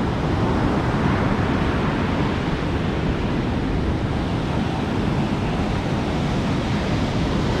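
Rough surf breaking and washing up a sandy beach, a steady rushing roar of waves, with wind gusting on the microphone.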